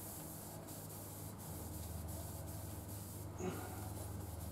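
Faint rubbing of a Scotch-Brite pad over a pitted motorcycle fork part, against a steady low hum, with one brief small sound about three and a half seconds in.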